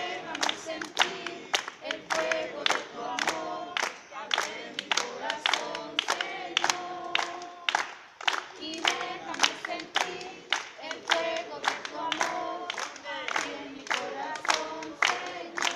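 A small group singing a praise song in unison without instruments, clapping their hands together in a steady beat.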